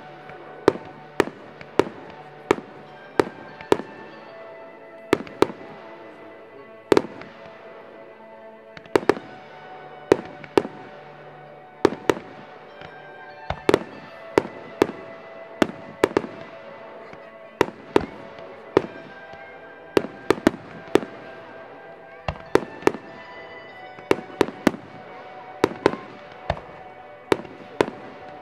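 Aerial firework shells bursting in a steady series of sharp bangs, about one a second, some in quick pairs, with music playing underneath.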